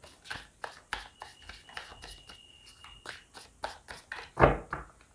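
Tarot cards being shuffled and handled: a quick run of soft clicks and flicks as the deck is worked, with one louder knock about four and a half seconds in.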